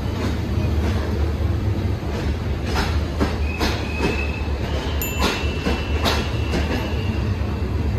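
Passenger coaches rolling slowly alongside a platform: a steady low rumble with a run of wheel clacks over rail joints through the middle, and a thin, high wheel squeal that sets in about a third of the way through and lasts several seconds.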